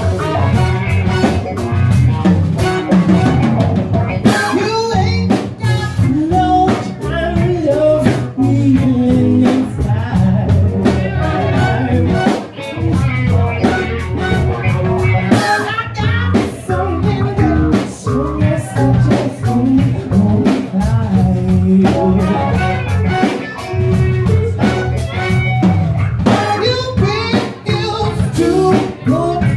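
Live band playing a cover song: electric bass, drum kit and a lead singer, loud and full through a phone's microphone in the room.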